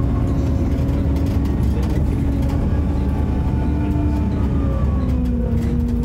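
Bus engine running under way, a low rumble with a loud 'hoover' whine over it whose pitch sinks slowly and drops a step about five seconds in.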